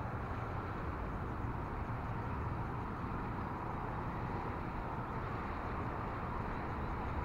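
Steady rushing of a fast-flowing river, with a low rumble underneath.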